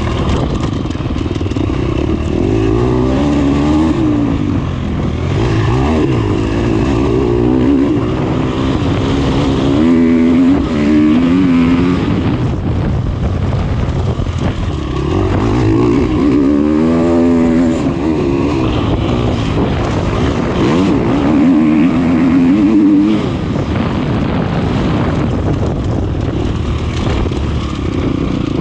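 KTM dirt bike engine under hard riding, its pitch repeatedly climbing and dropping as the throttle is opened and closed over rough ground.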